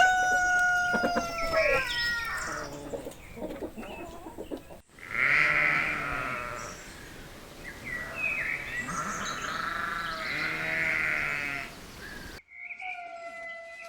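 The tail of a rooster's crow fades in the first two seconds. After a cut, a goat bleats several times in long, wavering calls. Near the end, a different recording of thin, high calls begins.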